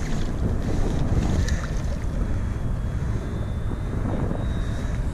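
Steady wind buffeting the microphone, a low rumble with no break.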